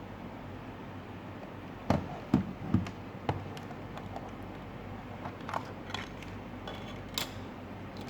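Handling noise: a quick run of four light knocks and clicks, then a few fainter clicks, over a steady hiss.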